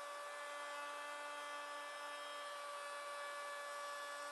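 Handheld electric router running at a steady high speed as it trims a board's edge flush along a straightedge: a constant whine with a noisy cutting hiss.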